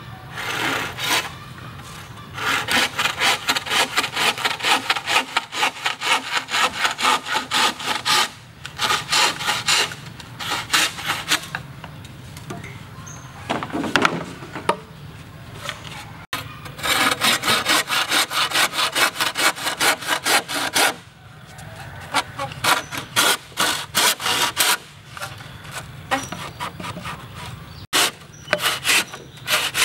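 Bow saw cutting through a green bamboo pole in several spells of quick back-and-forth strokes, with short pauses between.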